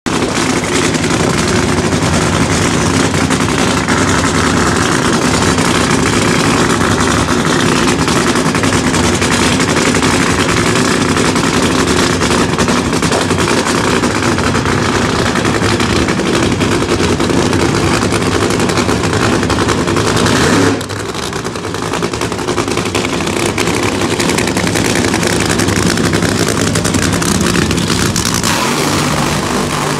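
Funny car drag-racing engines running loud at idle with a rapid popping rattle. About two-thirds of the way through the sound drops suddenly to a lower level, then builds back up gradually.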